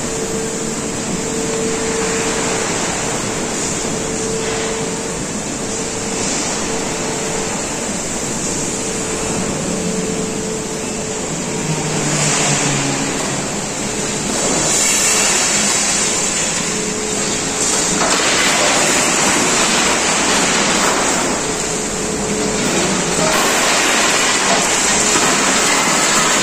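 Overhead crane tipping a shipping container of scrap metal inside a large steel mill hall: a steady machine hum under continuous industrial noise, with louder swells from about halfway as the scrap slides out of the upturned container onto the pile.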